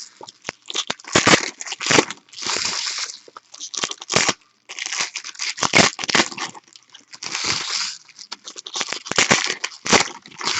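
Trading cards and their packs being handled: repeated short rustles and slides of cards and wrapper, each under a second, with sharp clicks in between.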